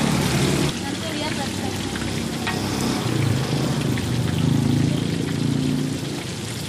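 Chicken deep-frying in a large wok of hot oil, a steady sizzle and crackle.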